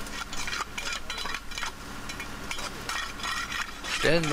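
Ivy and dry branches being torn out of a stone masonry wall by hand: irregular rustling and scraping, with light clinks of a hand tool against the stone.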